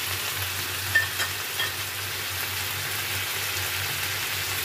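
Bell peppers and fish pieces sizzling in a wok with a little water, a steady hiss over a low hum. A few light clicks of the spatula against the wok come about a second in.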